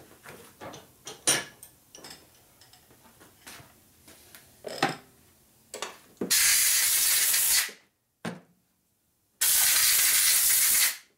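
Compressed-air blow gun fired in two blasts of about a second and a half each, blowing reaming chips off the tool. Before the blasts there are light clicks and knocks of metal parts being handled.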